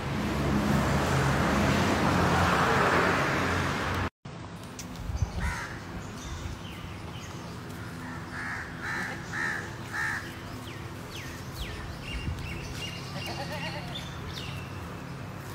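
Outdoor ambience that opens with a loud, steady rush of noise for about four seconds. After a brief dropout, birds call: a run of four short harsh calls about half a second apart, then some chirping.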